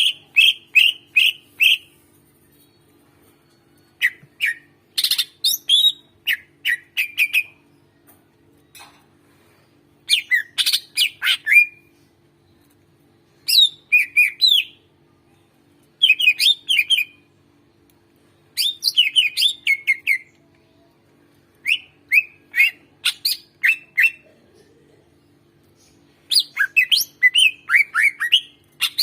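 Cucak ijo (greater green leafbird) singing in repeated bouts of rapid, sharp chirping and whistled phrases, each bout one to three seconds long with short pauses between.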